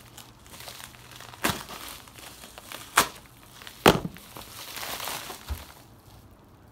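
Plastic mailer bag crinkling and rustling as it is handled and torn open, with three sharp crackles of the bag, the last two loudest.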